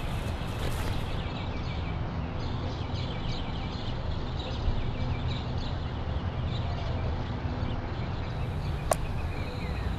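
Small birds chirping, short repeated calls, over a steady low rumble of outdoor ambience. A single sharp click near the end.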